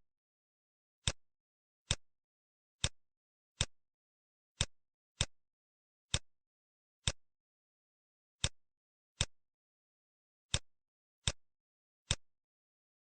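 Computer mouse clicking: thirteen sharp single clicks at irregular intervals, roughly one a second, with dead silence between.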